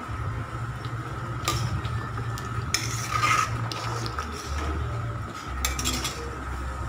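A metal ladle stirring thick boiling curry in a metal kadai, with a few clinks and a scrape of the ladle against the pan, over a steady low hum.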